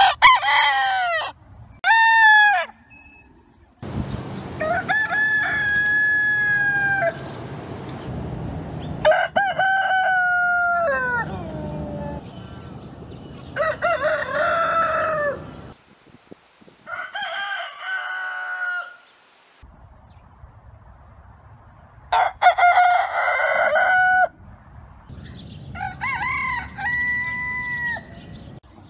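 Roosters crowing in turn, about eight crows in all, each a second or two long and ending in a falling tail, with the background changing between them as different birds follow one another.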